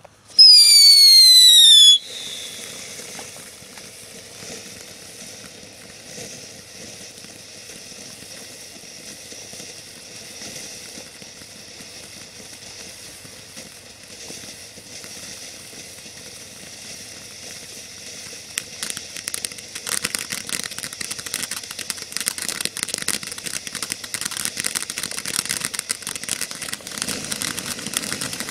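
A loud whistle falling in pitch for under two seconds, then a 'Frosty Mug of Beer' consumer firework fountain spraying with a steady hiss. From about two-thirds of the way through, the hiss fills with dense crackling.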